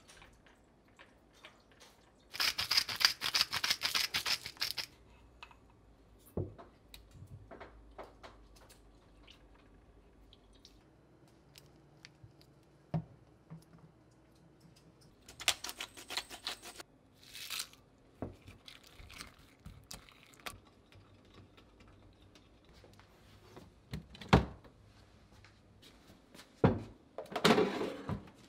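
Kitchen food-preparation handling sounds: a burst of rapid crackling rustle about two seconds in, another a little past the middle and a third near the end, with single knocks and taps between.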